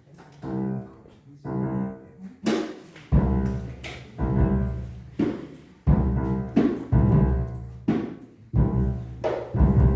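Jazz piano trio of piano, upright bass and drums playing. Quiet piano chords open, then loud bass notes and drum hits join about three seconds in.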